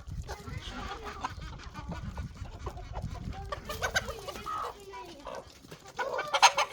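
Chickens clucking in short, irregular calls, louder near the end.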